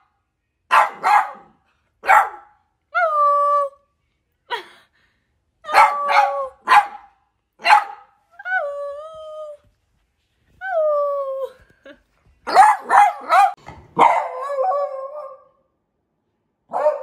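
Young lemon beagle barking: short sharp barks, often in quick pairs or runs, with four drawn-out calls between them that fall in pitch.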